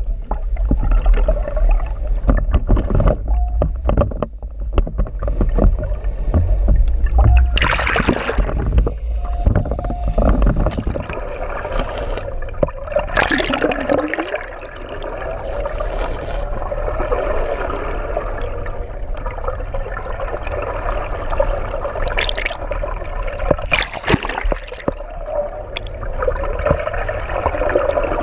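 Underwater water noise picked up by the camera: a continuous gurgling rush of water with a steady hum, broken by a few sudden loud gushes about 8, 13, 22 and 24 seconds in. The heaviest low rumble is in the first third.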